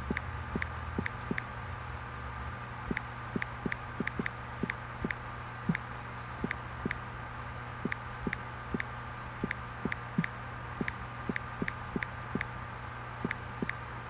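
Steady electric hum of an air compressor or blower running, with a high whine in it. Over it come sharp, irregular clicks, about two to three a second.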